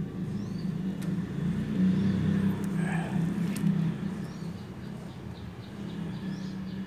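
A steady low engine hum runs throughout, with a few faint, short, high bird chirps. There is a brief rustle about three seconds in.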